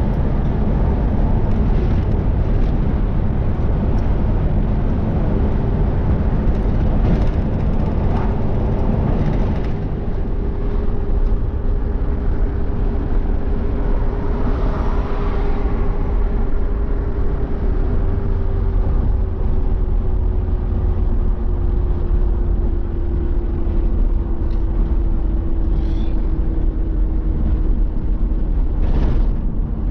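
Road vehicle driving: a steady low rumble with an engine hum that slowly drops in pitch through the second half.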